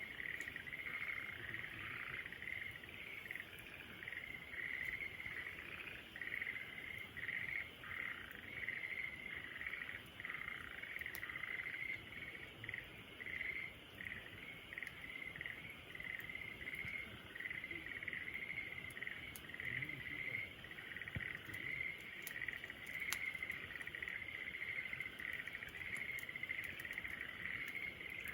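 A steady pulsing chorus of chirping insects, with a few faint sharp crackles from a campfire scattered through it.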